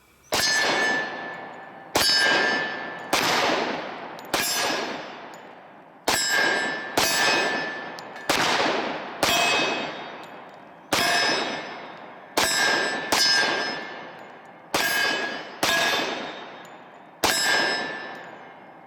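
A string of 10mm pistol shots from a Glock 20, roughly one every second. Each shot is followed by the long, ringing clang of a steel target plate being hit. Some plates ring lower than others as the shooter moves between targets.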